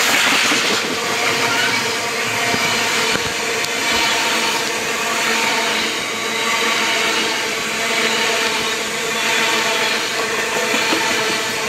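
Covered bogie hopper wagons of a GB Railfreight coal train rolling past close by: a steady rumble and rattle of wheels on the rails, with a faint steady whine mixed in.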